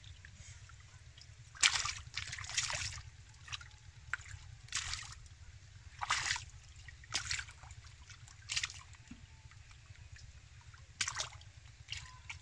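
Shallow muddy water splashing and sloshing as hands grab at large catfish, in short irregular splashes every second or two over a low steady rumble.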